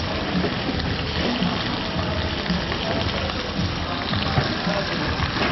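Busy street-market ambience: a crowd's scattered chatter and background music over a steady hiss.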